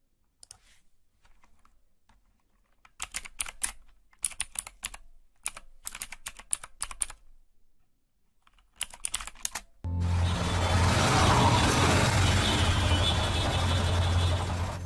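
Computer keyboard typing in short bursts of quick key clicks. About ten seconds in, a loud steady rumbling noise with a low hum takes over.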